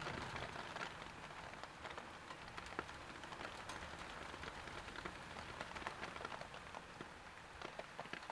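Steady rain, with many separate drops ticking sharply on hard surfaces.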